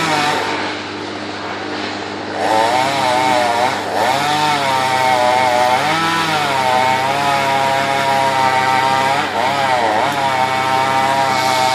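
Chainsaw engine running as it cuts into a tree, its pitch sagging and recovering under load. It runs quieter for the first couple of seconds, then louder from about two and a half seconds in.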